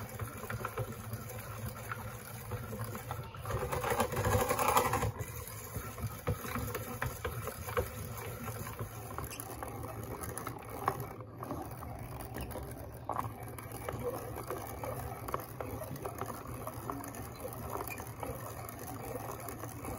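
Hand-cranked food mill turning, its blade scraping and squishing cooked apples through the perforated pan as they are milled into applesauce. A low steady hum runs underneath, and the milling noise is louder for a second or so about four seconds in.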